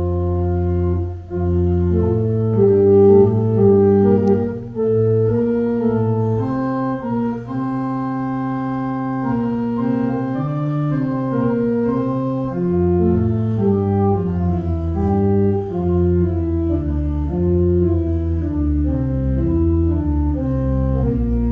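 Organ music: slow, held chords with a melody line moving over sustained bass notes.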